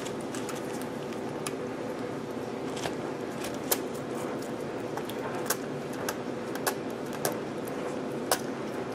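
A six-week-old western gray squirrel nursing formula from a feeding syringe, making short sharp clicks and smacks every half second to a second, more of them in the second half, over a steady hum.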